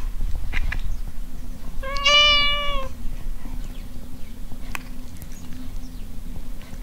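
Tabby cat meowing: one long, level-pitched meow about two seconds in, lasting about a second.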